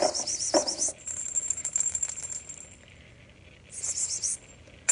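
Small bells on a cat toy jingling in two short bursts, one at the start and one about four seconds in, with a thin ring lingering after the first.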